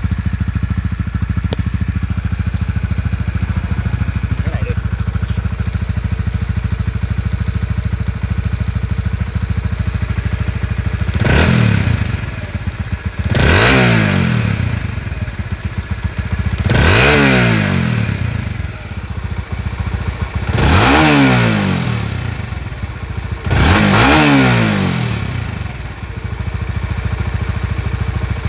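Honda Winner X's single-cylinder DOHC engine idling steadily, then revved five times from about 11 seconds in, each blip rising in pitch and dropping back to idle.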